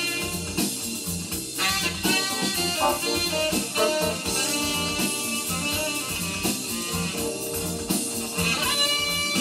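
Vinyl record played on a Linn Axis turntable through a hi-fi amplifier and loudspeakers: band music with a steady drum beat and held instrument notes.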